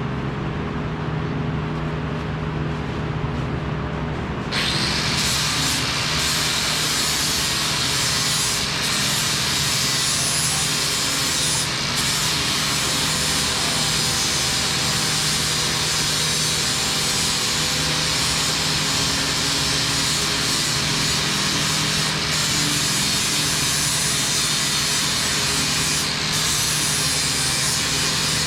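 A metalworking tool starts about four and a half seconds in and runs with a steady, harsh hiss, dipping briefly a few times, over a constant low machine hum.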